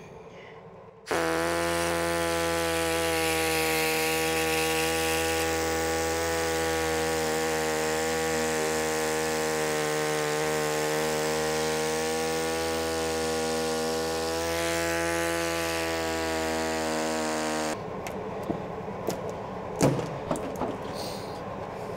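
Handheld power drill running steadily, cutting out spot welds along the steel body seam of a FIAT Dino. It starts abruptly about a second in and cuts off suddenly after about 16 seconds. Then come scattered metal knocks and scrapes as a pry bar works the loosened panel.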